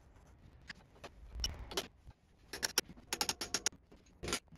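Steel handwheel parts (washers, spacer, micrometer dial and ball-handle) clinking and clicking as they are fitted onto the milling machine's table screw. There is a scatter of light metallic clicks, a quick run of them about three seconds in, and a sharper click near the end.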